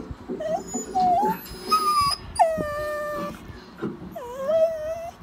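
A dog whining and yowling at its owner in about five drawn-out calls that slide up and down in pitch, the longest held for about a second near the middle. The dog is asking its owner to come to bed.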